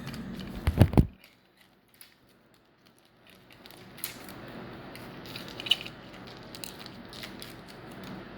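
Hands handling plastic coin packaging: two sharp clicks about a second in, then after a short near-silent gap, light scattered clicks and rustling over a faint steady hiss.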